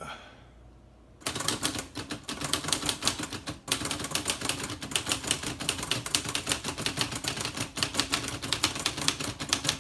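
Olivetti Lettera 32 manual portable typewriter being typed on: a quick run of typebar strikes starting about a second in, with one brief pause partway through.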